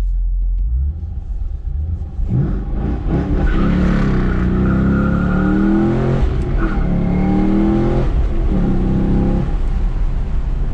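The Chevy SS's 6.2-litre LS3 V8 accelerates hard under full throttle, its pitch climbing, then dropping briefly twice as the manual gearbox is upshifted before the revs fall away near the end. Heard from inside the cabin.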